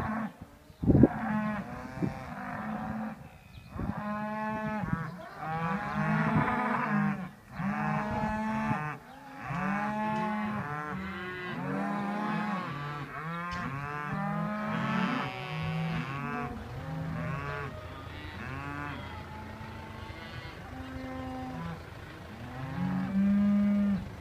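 A herd of cattle mooing continuously, many calls overlapping, as the cows are turned out to grass after winter housing. There is a sharp knock about a second in.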